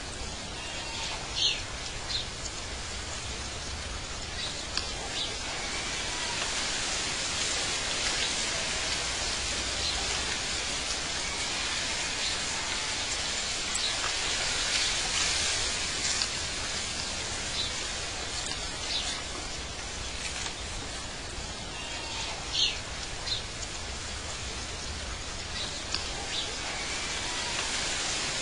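Nature ambience: a steady rushing noise like wind or running water, with scattered short bird chirps over it, two of them louder than the rest.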